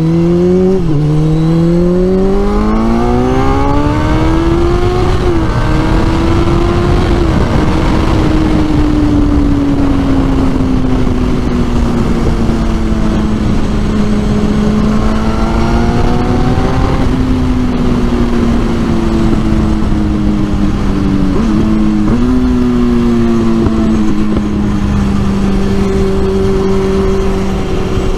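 2004 Kawasaki Z1000's inline-four engine accelerating through the gears, its pitch climbing with short dips at the shifts in the first several seconds. It then settles into a steady cruise whose pitch drifts slowly down and up, with another brief shift dip a little past the middle.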